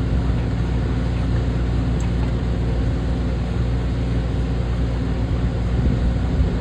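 A steady low hum and rumble with an even, unchanging level.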